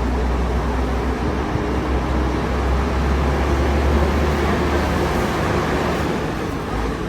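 Steady vehicle noise: a continuous low rumble under an even hiss, with no distinct events.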